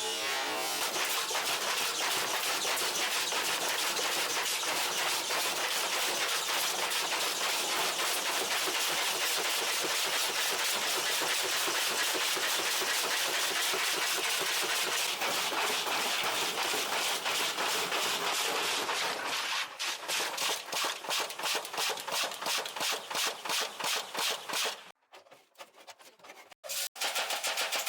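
Washing machine running hard with a fast, continuous rattling and banging that then slows into separate knocks spaced farther and farther apart, about twenty seconds in, as the drum winds down.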